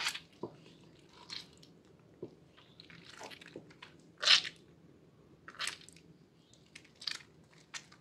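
Hands squeezing and kneading soaked, softened Purbasari Red antibacterial bar soap in lather: short, irregular wet squelches about once a second, the loudest about four seconds in.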